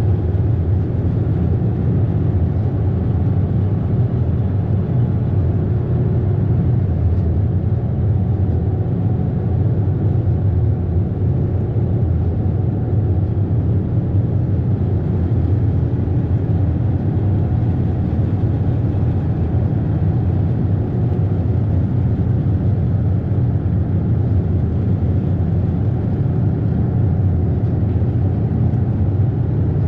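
Ferry's engine running with a steady low drone, mixed with the rush of water past the hull.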